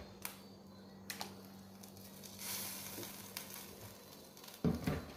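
Faint kitchen handling sounds around a pot on the stove: a few light clicks, a brief hiss in the middle, and a louder low knock near the end.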